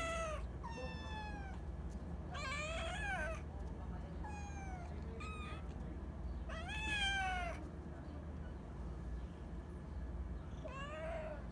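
Young cats meowing repeatedly: about seven meows at uneven intervals, most rising and then falling in pitch.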